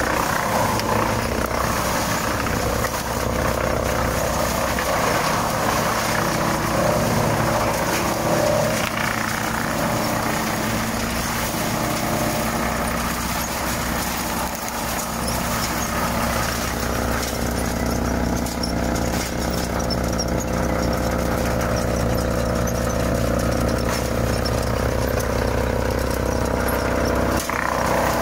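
FiatAgri 115-90 tractor's diesel engine driving a Farmi CH27 wood chipper as it chips branches: a steady, loud machine din of engine hum and the chipper drum.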